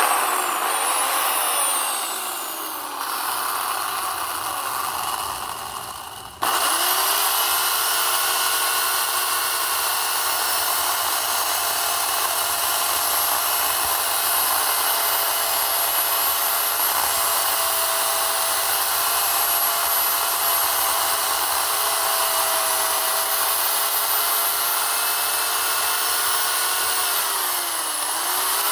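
WEN 16-inch electric chainsaw running and cutting through a small pine trunk. The motor whine drops out briefly and starts up again about six seconds in, and dips in pitch as the chain bogs down in the wood near the end.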